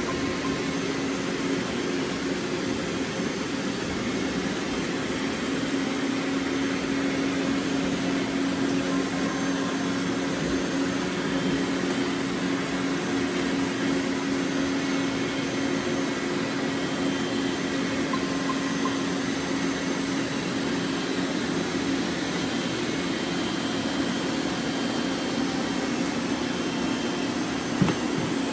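Robot vacuum cleaners running: a steady whir with a constant low hum. One short knock comes near the end.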